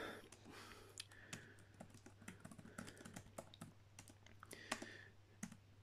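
Faint, irregular keystrokes of someone typing on a computer keyboard.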